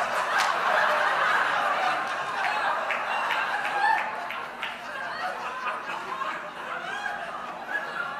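Audience laughing, loudest at the start and dying down gradually over several seconds.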